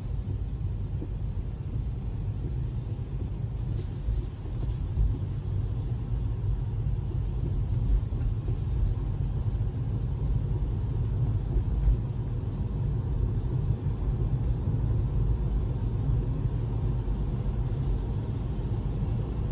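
Steady low rumble of road and tyre noise on a wet road, heard inside a moving Tesla's cabin, with no engine sound, only a few faint ticks about four and eight seconds in.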